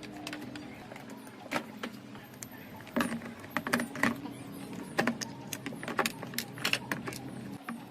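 Small metal parts and tools clinking and tapping against each other irregularly, with a handful of louder knocks from about three seconds in.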